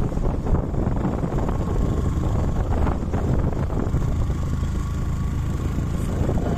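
Motorcycle engine running steadily while riding, mixed with wind buffeting the microphone.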